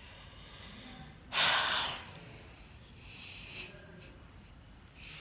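A woman's sharp, loud breath through the nose, a snort or sniffle, about a second and a half in, then a softer breath about three seconds in. She is emotional at the time.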